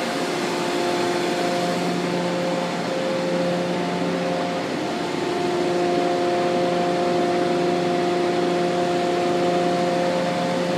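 Steady industrial machinery drone: a constant pitched hum over an even rush of noise.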